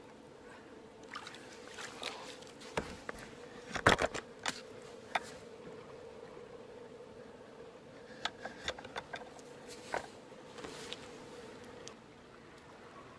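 Clicks and knocks of fishing tackle being handled at the water's edge, the loudest cluster about four seconds in and another run of clicks later, over a faint steady hum that stops near the end.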